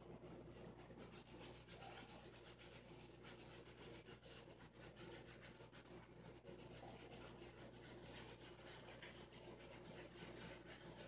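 Shaving brush bristles rubbing lather into a thick beard in quick strokes: a faint, continuous scratchy brushing.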